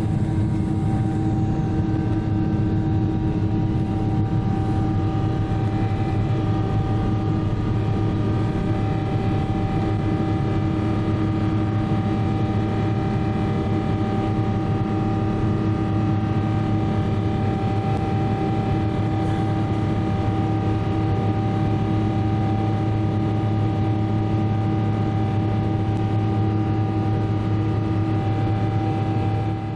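Boeing 777-300ER's GE90 jet engines heard inside the cabin in flight: a loud, steady, deep rush with several constant humming tones layered over it, unchanging throughout.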